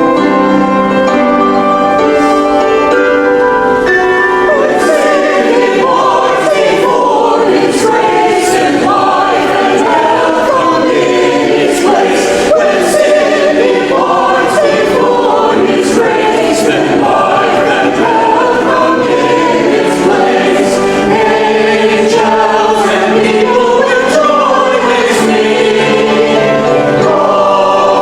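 Church choir singing with instrumental accompaniment. The first few seconds hold sustained instrumental chords, and the choir's voices come in about four seconds in.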